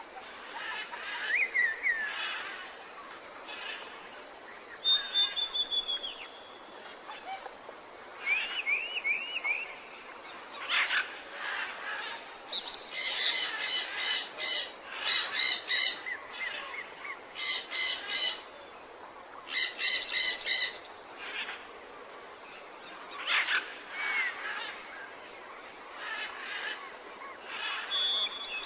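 Tropical forest ambience: assorted birds calling and chirping over a steady background hiss. Several loud bouts of a rapidly pulsed call come in the middle, with shorter whistled and trilled notes before and after.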